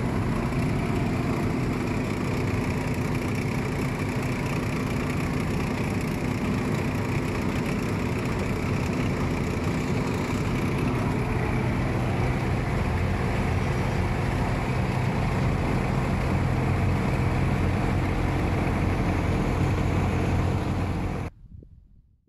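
Engine of an off-road vehicle running steadily under way, heard from inside the cab. It cuts off suddenly near the end.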